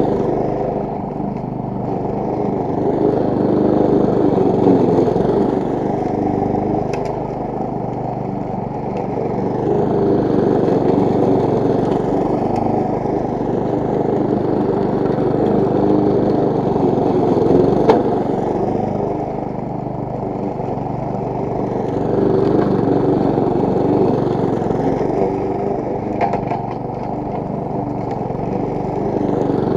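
Briggs & Stratton single-cylinder four-stroke engine of a petrol walk-behind lawn mower running steadily while cutting grass, its sound swelling and easing every several seconds as the mower is pushed along.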